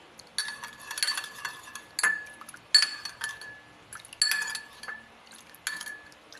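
A spoon stirring honey into oregano juice in a small cup, scraping and clinking against the sides. It comes in a run of short bursts, each with a ringing clink, about a second apart.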